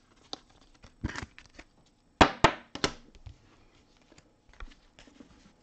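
Hands opening a pack of trading cards and handling the cards: scattered sharp clicks and short crinkling rustles of the pack wrapper and card stack, loudest in a cluster about two to three seconds in.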